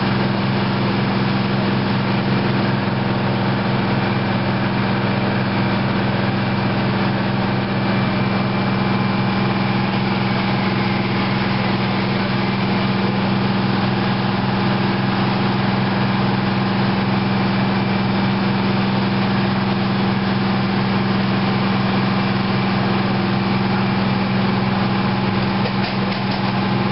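Fire engine's diesel engine running at a constant speed, a loud steady drone that does not change, as when driving its pump to supply the hose lines.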